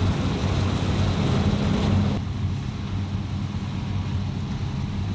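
Fendt IDEAL 10T combine harvester running while harvesting wheat: a steady low engine hum under a rushing noise. About two seconds in, the rushing noise drops away abruptly and the lower hum continues.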